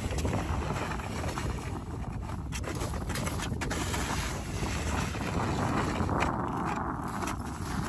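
Steady wind rumble buffeting the microphone, with a few short scrapes of a metal snow shovel on snow and ice.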